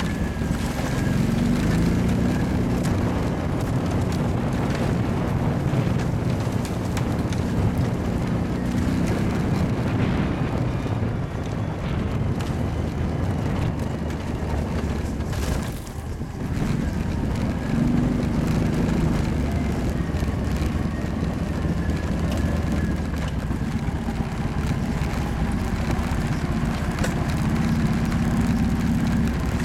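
Kawasaki ATV engine running while the quad is ridden, its pitch rising and falling with the throttle, with wind on the microphone. The engine dips briefly about sixteen seconds in, then picks up again.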